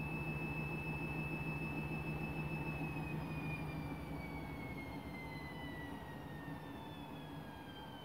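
Front-loading washing machine on a spin: the motor's high whine holds steady, then falls in pitch from about three seconds in as the drum slows, with the overall hum slowly fading.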